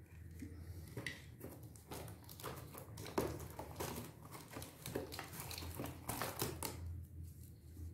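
Handling noise from unboxing a toy RC car: small clicks, taps and rustles of plastic and cardboard packaging as a charger cable and battery pack are lifted out. It starts about a second in and dies away near the end.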